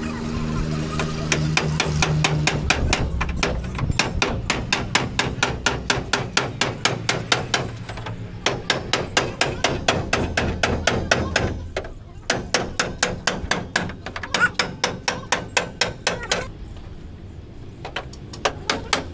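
Rapid, steady hammer blows on the sheet-steel body of a Maruti Omni van at the rear wheel arch, several strikes a second, as the body is cut down. The strikes pause briefly about twelve seconds in and go quieter for a couple of seconds near the end.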